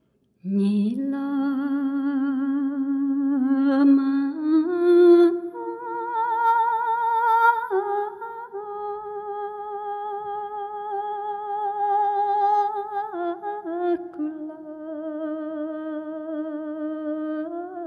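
A solo voice singing a slow, wordless-sounding melody in long held notes with vibrato, stepping up and down between a few pitches.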